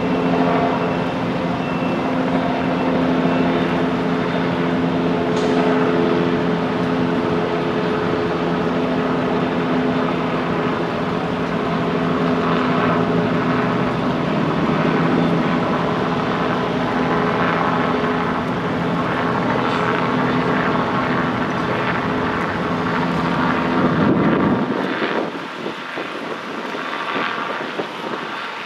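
A large vehicle's engine idling with a steady low hum that stops suddenly near the end.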